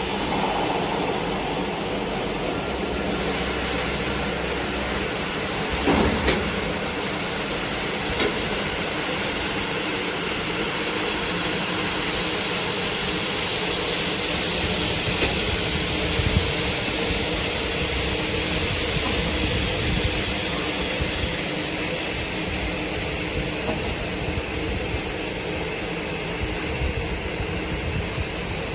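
Automatic bottle filling and capping line running: steady machinery noise with a low hum, and a few short knocks about six and eight seconds in.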